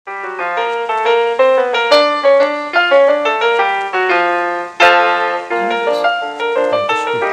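Piano music that starts abruptly out of silence, a lively melody of quick, rippling notes.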